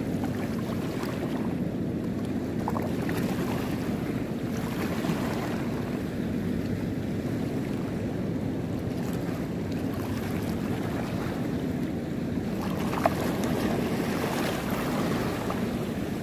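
Steady low rumble of wind on the microphone over lapping sea water, with one brief click about thirteen seconds in.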